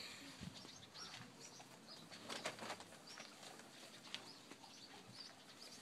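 Faint rustling and scattered light clicks, with a few brief faint high bird chirps.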